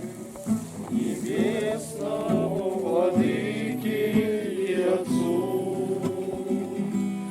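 A group of voices singing a Russian Christian hymn together.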